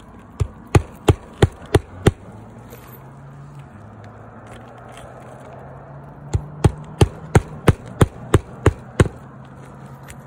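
A hammer driving new roofing nails under a lifted asphalt shingle: a quick run of about six blows, a pause of a few seconds, then about nine more blows.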